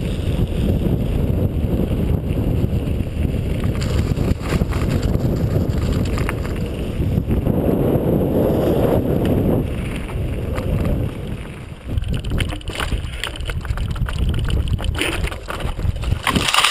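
Wind buffeting a GoPro action camera's microphone as a mountain bike rolls fast down a gravel track, with tyres crunching over the gravel and the bike rattling. The rattles and knocks come thicker over the last few seconds, ending in a loud jolt.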